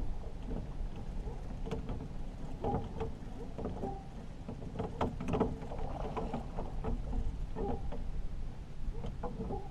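Irregular light splashing at the side of an aluminium fishing boat, with scattered knocks and clicks, while a hooked catfish is brought alongside. The sounds come thickest about halfway through, over a steady low rumble.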